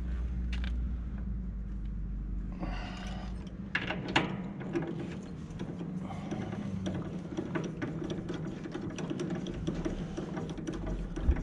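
Hydraulic hose fitting nut being screwed by hand onto the pump's threaded port: a few sharp metal clicks, then a fast, even metallic rattle from about halfway in.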